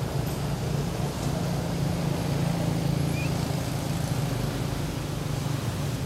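A steady low motor hum with no breaks.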